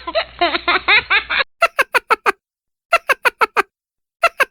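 Laughter sound effects: a giggling laugh with a dull, muffled tone, then a clear, quick "ha-ha-ha-ha-ha" laugh played three times in a row, five beats each time.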